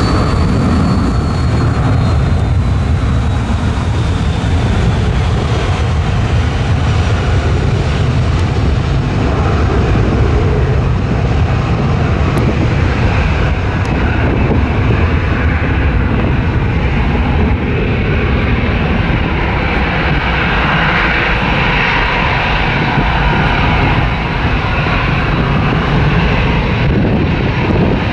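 Boeing 757-300 jet engines at takeoff power: a loud, steady, deep rumbling roar. A thin whine fades in the first few seconds, and the high hiss thins as the jet draws away.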